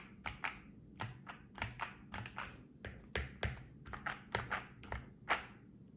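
Typing on a modded BM65 mechanical keyboard with lubed, filmed Gateron Black Ink V2 linear switches, PBT keycaps and a foam-filled case. The keystrokes come unevenly, a few a second, and stop about five and a half seconds in, with one louder stroke just before they stop.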